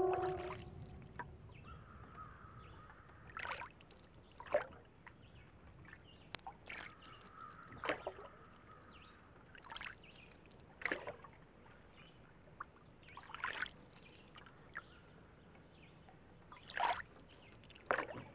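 The tail of a wolf howl falling away in the first half second, then soft, irregular splashes of water about every second or two.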